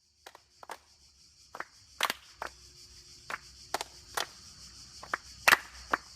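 Hand sounds: about a dozen sharp claps and slaps at uneven intervals, some louder than others, the loudest about five and a half seconds in, over a steady high hiss.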